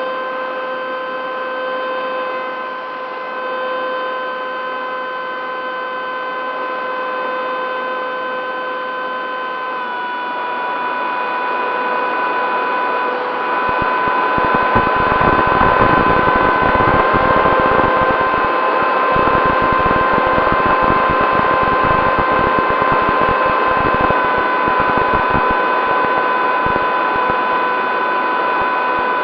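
Bixler 3 model plane's electric motor and propeller running with a steady whine, heard from the onboard camera, its pitch stepping slightly down or up a few times as the throttle changes. From about halfway through, gusty wind rumble on the microphone joins it.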